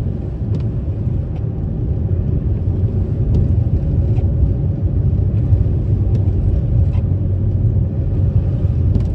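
Steady low rumble inside a parked car's cabin with the engine running, with a few faint ticks.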